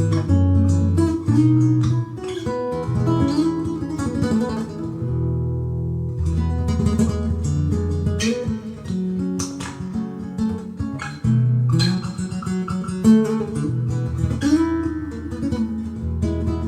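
Acoustic guitar played solo: chords strummed and picked over a moving bass line, with a low chord left ringing about five seconds in.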